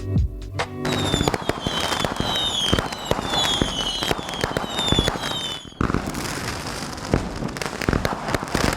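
Fireworks going off: dense crackling pops with a string of short whistles, each falling in pitch, for about five seconds, then crackling alone. Music ends in the first second.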